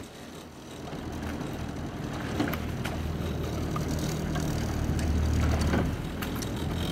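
Motorboat engine running steadily, a low hum that grows louder over the first few seconds.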